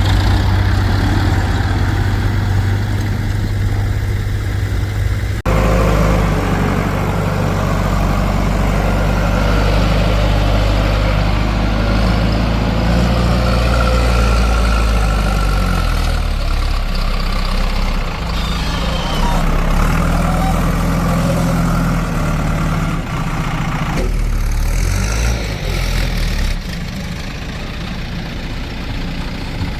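Heavy diesel engines running, their engine speed shifting up and down. The sound changes abruptly about five seconds in and again near 24 seconds.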